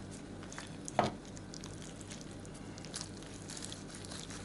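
A large kitchen knife cutting into a roasted pork knuckle: faint crackling and tearing of the crisp skin and meat, with one sharp knock about a second in.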